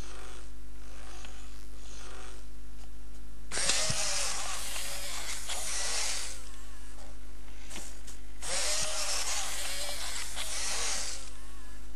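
Geared leg motors of an i-Cybie robot dog whirring as it moves, in short faint pulses at first, then two longer, louder runs starting about three and a half and eight and a half seconds in, their pitch rising and falling. A steady low hum sits underneath throughout.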